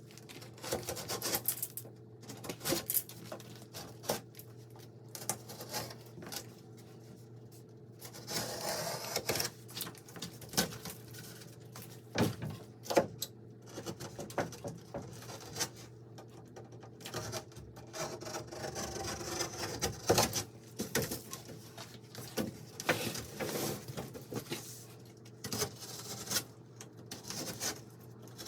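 Irregular clicks, taps and knocks of hand work, with a couple of longer rustling scrapes, over a steady low hum.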